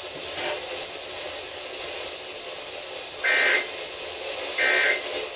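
Steady radio static hiss, then about three seconds in two short warbling data bursts about a second apart: the EAS/SAME end-of-message tones that close an emergency alert broadcast.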